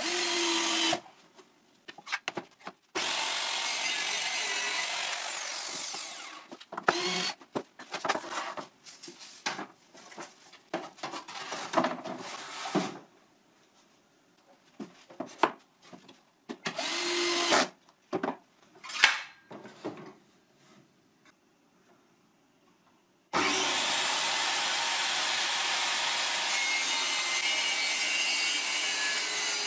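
A 14.4 V cordless drill whirs briefly as it drives a screw into a wooden stop block, followed by knocks and clatter of boards and tools being handled, with another short drill run. About 23 seconds in, a Makita circular saw starts cutting plywood, a loud steady sound that carries on to the end.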